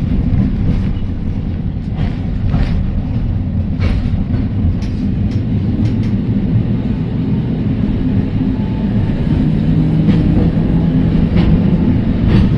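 Heritage electric tram running along its track, heard from on board: a steady low rumble with scattered sharp clicks and knocks. A steadier low hum comes in about nine seconds in.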